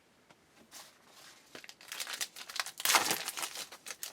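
Foil wrapper of a trading-card pack crinkling as it is torn open. The crinkling starts about a second in and is loudest around three seconds.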